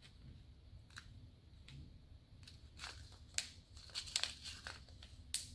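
Small resin diamond-painting drills being gathered up off a tabletop: faint scattered clicks and rustles, coming more often from about halfway through, with a couple of sharper clicks.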